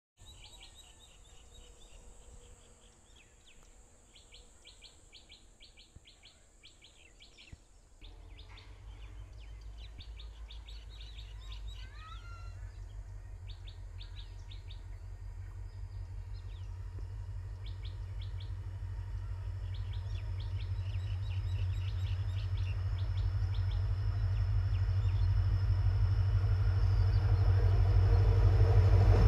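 Small birds chirping in quick runs. About eight seconds in, the low rumble of an approaching diesel locomotive starts and grows steadily louder, with the birds still calling over it.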